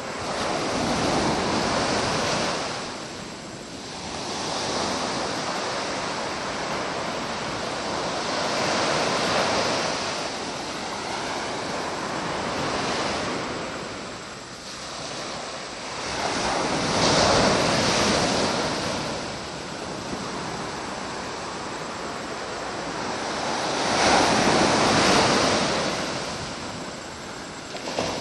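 Sea surf: waves breaking on the shore, the rush of water swelling and fading about every seven to eight seconds.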